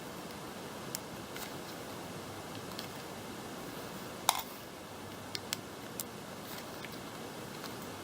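Light clicks and taps from small hardware being handled, with one sharper click about four seconds in, over a steady hiss.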